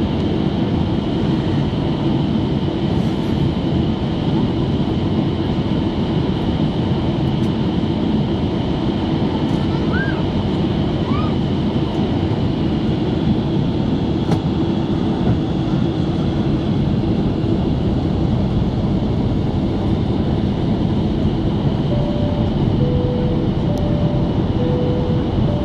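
Steady cabin noise of a Boeing 767-300 in descent, heard from a window seat by the wing: an even rush of engine and airflow with a constant hum. Near the end a faint two-note tone alternates high and low about once a second.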